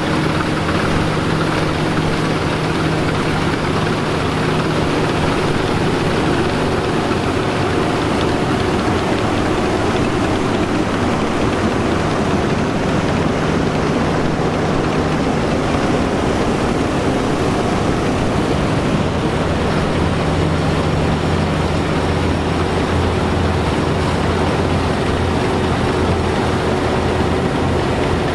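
Engines of vintage farm machinery running steadily, a constant mechanical drone with no let-up.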